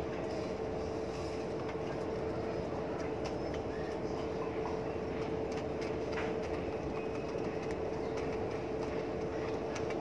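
A steady machine hum holding one constant pitch, with a few faint ticks of a pigeon pecking at feed pellets in a plastic feeder.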